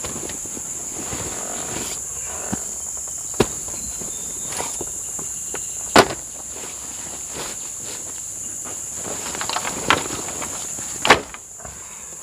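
Insects droning steadily and high-pitched in the forest, with a few sharp cracks over it, the loudest about six seconds in and near the end.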